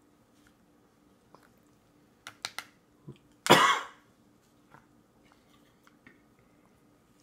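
A baby coughs once, short and loud, about halfway through. Just before, there are a few sharp clicks of a spoon against the metal bowl.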